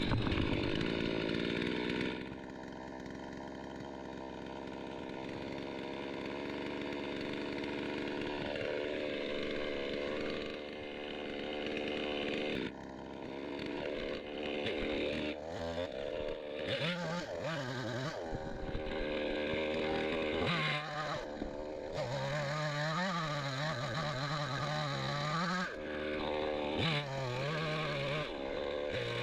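Getell chainsaw running at high revs, steady at first. From about halfway its pitch repeatedly dips and rises as the chain bites into dead citrus wood under load.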